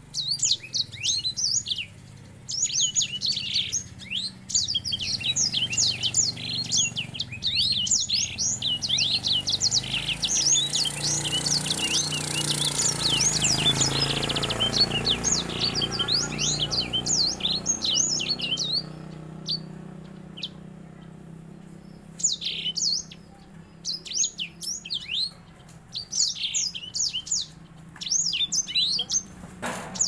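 Grey singing finch (edel sanger) singing a long, fast run of high chirps and trills in rolling phrases, the song of a male in breeding condition. The song runs almost without a break for the first eighteen seconds or so, then comes in shorter bursts with pauses between them.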